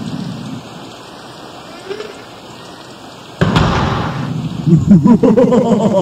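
Recorded Halloween sound effects of a thunderstorm: rain fading down to a low hiss, then a sudden crash of thunder about three and a half seconds in. A loud, wavering pitched sound follows, pulsing several times a second.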